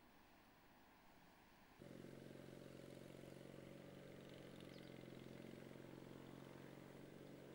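Near silence, then about two seconds in a faint, steady low mechanical hum starts suddenly and holds unchanged.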